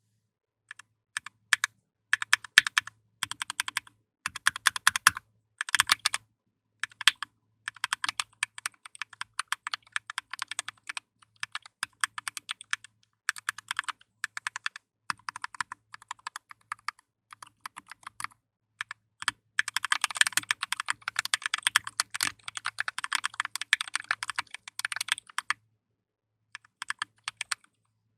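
Typing on a custom 60% mechanical keyboard built in a GK61XS case with lubed Zealio V2 tactile switches and Akko keycaps: quick runs of key clacks with short pauses, fastest and densest about two-thirds of the way through.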